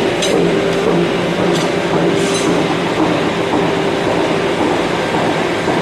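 Power hammer running, a loud, steady machine hum with a few light clicks.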